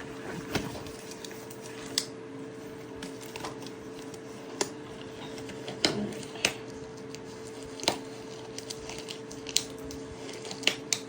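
Hands in disposable gloves handling a cardboard trading-card box: scattered sharp clicks, snaps and crinkles at irregular intervals, over a steady hum.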